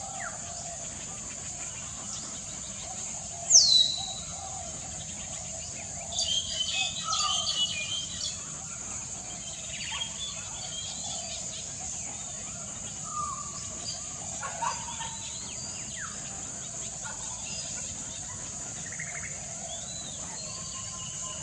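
African grey parrot whistling and calling: one loud falling whistle, then a run of chirps and squawks, then scattered short calls. A steady high hiss runs underneath.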